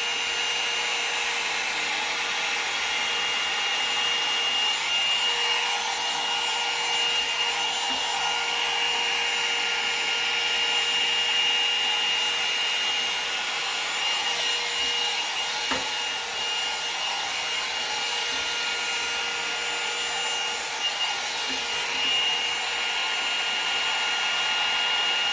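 Conair 2-in-1 hot air styler (a wand blow dryer with a brush attachment) running steadily, its fan blowing air with a constant high-pitched motor whine.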